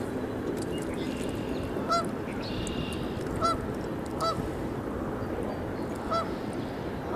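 Geese honking: about five short single honks a second or two apart, over a steady background hiss.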